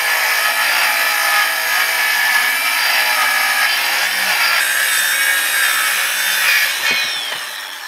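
Cordless circular saw ripping lengthwise through a rough-sawn wooden board, with a steady motor whine under the cutting noise. About seven seconds in, the blade winds down with a falling whine as the cut finishes.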